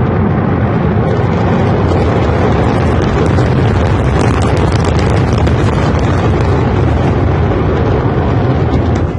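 Loud rocket roar: a steady, heavy rumble with crackling, cutting off abruptly near the end.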